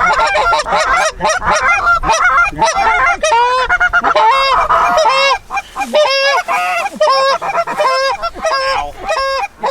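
Canada geese honking: a dense, overlapping clamor of many honks at first, then a run of loud, separate honks and clucks about two a second.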